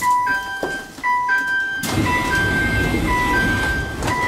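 Electronic two-note door chime of a Sendai Subway Tozai Line 2000 series train at a station stop, sounding a lower note then a higher one and repeating about once a second. A rush of noise joins it about two seconds in.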